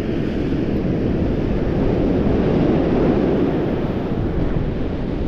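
Strong wind blowing across the microphone: a steady, deep rush of noise with no breaks.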